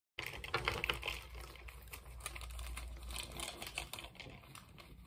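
Irregular light clicks and rustling as hands handle a disposable face mask and its ear loops, busiest in the first second or so.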